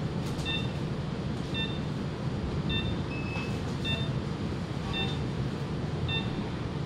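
Operating-room medical equipment beeping: a short electronic beep repeating steadily about once a second over a steady machine hum, with one longer beep of a different pitch about three seconds in.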